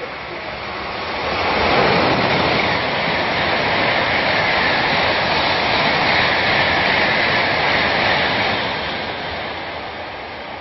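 Tokaido Shinkansen high-speed train passing through a station at full speed without stopping: a rushing noise that swells about a second in, holds loud for several seconds as the train sweeps past, and fades as it goes away.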